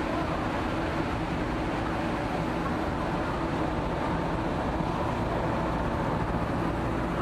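Steady drone of a small passenger ferry underway, its engines humming under the rush of the churning wake and wind across the deck.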